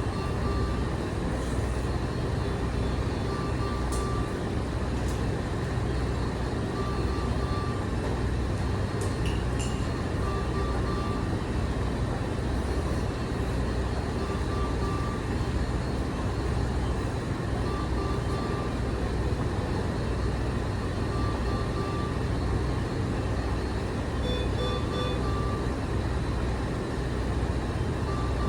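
Steady hum of running medical equipment with a short electronic beep repeating about every three to four seconds.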